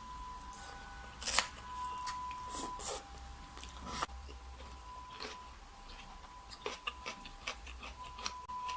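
Close-miked eating: chewing and biting, with scattered sharp clicks and small crunches.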